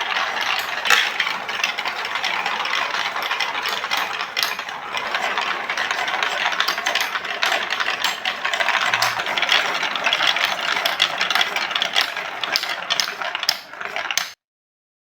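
Many marbles rolling and clattering down a plastic Lego Duplo block marble run, a continuous dense rattle of small clicks that cuts off suddenly near the end.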